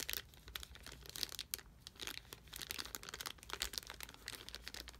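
Clear plastic zip-top bag of small ink sample vials crinkling as it is handled and turned in the hands, in faint, irregular crackles.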